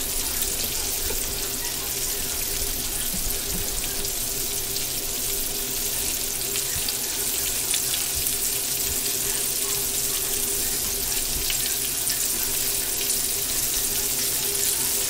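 Squirrel pieces frying in a pan, a steady sizzle, with a faint steady hum underneath.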